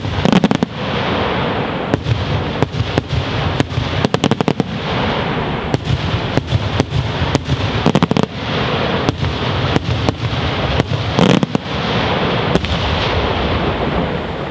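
Daytime aerial fireworks: shells bursting overhead in a dense, irregular barrage of sharp bangs and crackling clusters over a continuous rumble, thinning out near the end.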